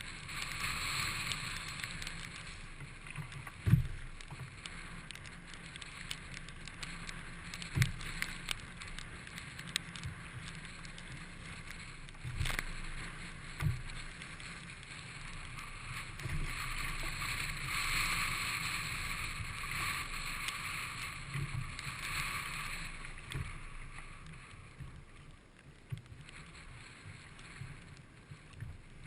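Water washing and wind around a sea kayak, a hiss that swells and fades, with occasional short low thumps.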